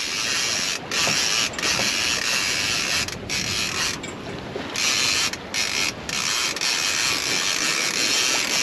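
Fishing reel being cranked in fast with its clicker engaged: a dense, steady clicking with a few short breaks, as a line with a fish on it is hauled in.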